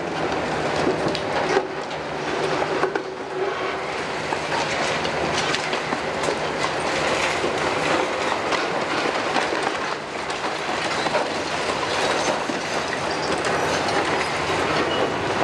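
Long-reach demolition excavator, a Hitachi 470 carrying a Kiesel KMC 600 front with a six-cylinder Isuzu diesel, running steadily while its demolition jaw crunches into a brick-and-concrete wall. Broken masonry clatters down continually in irregular knocks.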